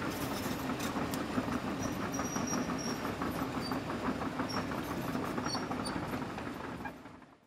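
Sound effect of a crawler excavator's diesel engine running with a steady rhythmic clatter as the upper platform slews around, fading out near the end.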